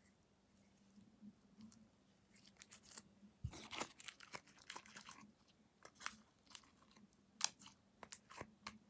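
Homemade glue slime being squeezed and pulled by hand, making sticky, wet crackles and pops in short bursts. The loudest burst comes about halfway through. The slime is still sticky and clings to the hands.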